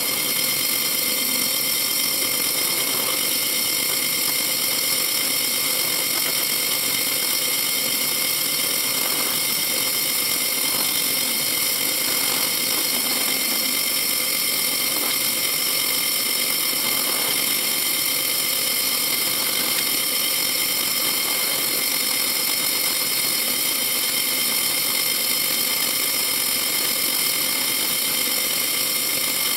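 Drill press running with a steady whine as its small bit drills a ring of closely spaced holes through thin sheet metal, to cut a circle out of the sheet.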